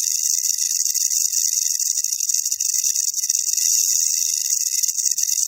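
Rattlesnake shaking the rattle on its tail: a continuous high, dry buzz made of very fast pulses, the snake's warning sound.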